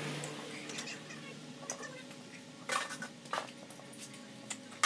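A few scattered light metallic clinks and taps as fittings and parts are handled in a car's engine bay, over a faint steady hum.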